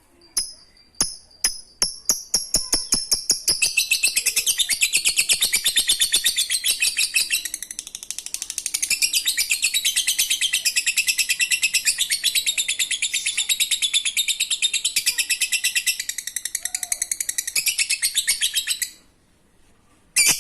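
Lovebird (Agapornis) giving its 'ngekek' call: a few sharp separate chirps that quickly speed up into one long, rapid, rattling chatter lasting about fifteen seconds. It cuts off abruptly near the end, and a single brief sharp chirp follows.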